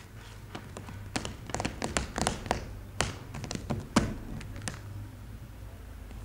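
Fingertips tapping and patting on a stage floor: a run of irregular light taps, the loudest one about four seconds in, the last just before five seconds, over a steady low hum.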